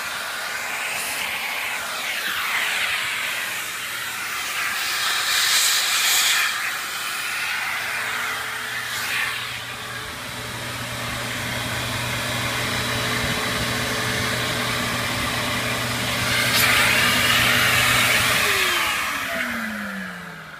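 Husky Storm central vacuum power unit running with a steady motor hum over a hiss of moving air. Near the end it is switched off and the motor winds down with a falling pitch, taking a moment to stop fully.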